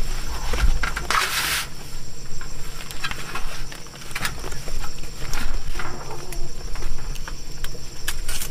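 Insects droning steadily at a high pitch, with scattered clicks and knocks and a short burst of noise about a second in.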